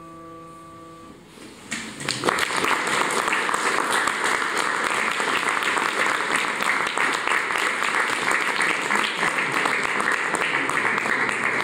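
The last held chord of an electronic keyboard dies away, then an audience breaks into steady applause about two seconds in.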